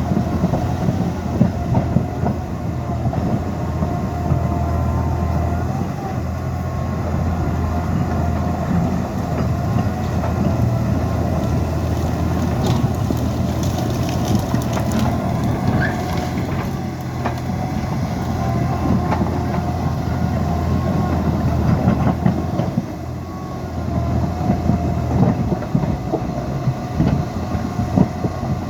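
Liebherr PR 754 crawler dozer running: a steady diesel engine rumble, with the clanking of its steel tracks and a wavering metallic squeal over it.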